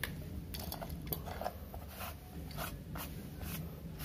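Light handling noises: scattered small clicks, taps and rubs as a die-cast toy car is moved and turned on a plastic cutting mat, over a steady low background hum.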